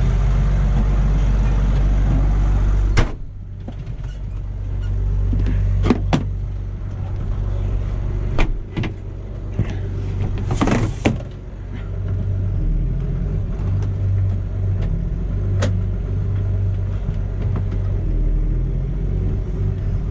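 Deutz-Fahr Agrotron M610 tractor engine running. About three seconds in a cab door shuts with a sharp clack, and the engine then sounds muffled from inside the cab. A few clicks and knocks from the cab follow, with a short rustle near the middle.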